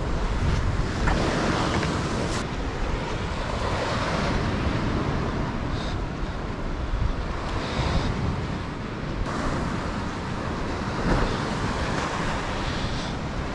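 Wind buffeting the microphone over the steady wash of ocean surf breaking on the rocks.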